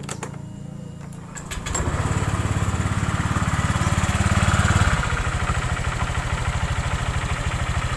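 Honda Vario 125's single-cylinder scooter engine, a few clicks, then revved for about three seconds and dropping back to a lower steady run about five seconds in. It runs without the rough rattle from the rear: the loose air filter box has been wedged with a piece of inner-tube rubber.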